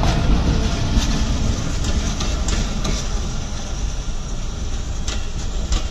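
Passenger train's coaches rolling past on the adjacent track, a steady rumble with sharp wheel clicks over the rail joints. The sound eases off as the last coach goes by and the train draws away.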